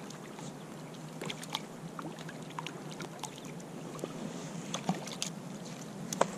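Small, irregular water splashes and drips as a small hooked stocked trout is played and brought in at the surface.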